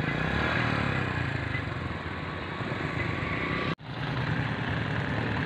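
Small commuter motorcycle's engine running steadily. The sound cuts out for an instant about four seconds in, then the engine sound carries on.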